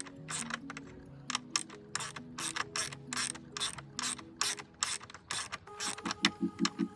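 Ratchet clicking steadily, about three clicks a second, as fasteners are worked loose, over quiet background music.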